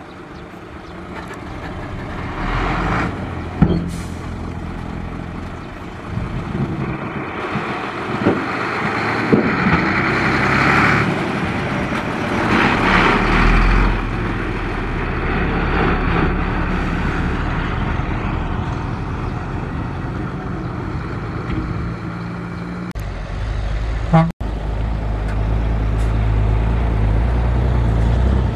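Diesel dump trucks driving on a dirt haul road, engines running steadily with stretches of hiss and a few sharp knocks. A brief cut-out comes near the end, after which a louder, deeper engine rumble takes over.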